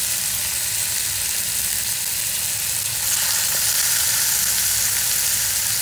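Boneless chicken pieces sizzling as they fry in hot olive oil with ginger-garlic paste: a steady hiss, a little louder from about three seconds in.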